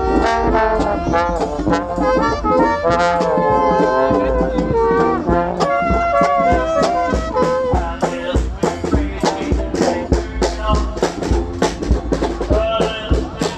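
Street brass band playing: trombones, trumpets and a sousaphone over a drum, the drum beats standing out more strongly in the second half.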